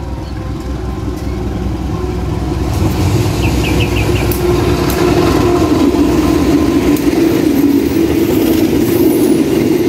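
A diesel-hauled passenger train approaching and passing close by. The locomotive's engine and the wheels on the rails grow louder over the first five seconds, then the coaches roll past with a steady, loud rumble and a few sharp clicks.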